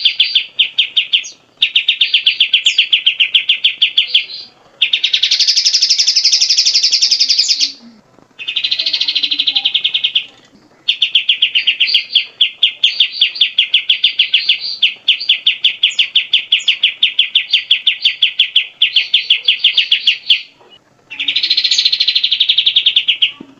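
Grey-cheeked bulbul (cucak jenggot) singing: loud bouts of rapid, evenly repeated chattering notes, each bout lasting a few seconds, with brief pauses between them.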